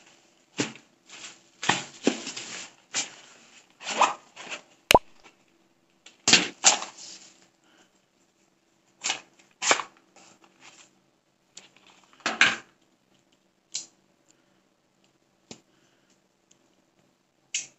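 Unboxing by hand: irregular rustling and crinkling of a plastic mailer bag and cardboard packaging, dense at first and then sparser, with a single sharp click about five seconds in and scattered handling taps later.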